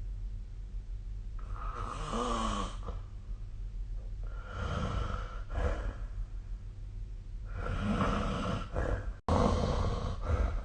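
A sleeping person snoring: three rasping snores about three seconds apart, each lasting a second or more, over a steady low hum.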